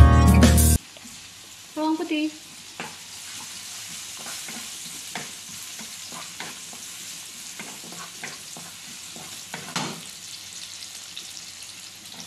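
Chopped garlic sizzling as it fries in oil in a pan, with a wooden spatula scraping and knocking against the pan as it is stirred. Acoustic guitar music cuts off suddenly just under a second in, and a short pitched sound comes at about two seconds.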